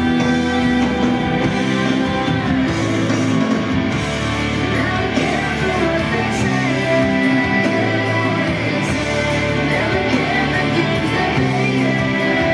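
Recorded music for a Viennese waltz with a singing voice and sustained chords.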